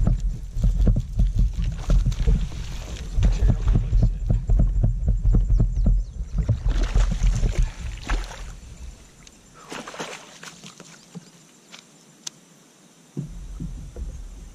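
A hooked fish splashing at the surface beside a kayak while it is scooped into a landing net, over low thumps and knocks of handling against the kayak. Two bursts of splashing water come about seven and ten seconds in, then only light drips and clicks as the net is lifted out.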